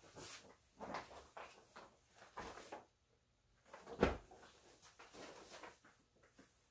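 Handling noises at a heat press: a string of soft rustles and light knocks as a T-shirt and transfer are worked on the press, with one sharper knock about four seconds in.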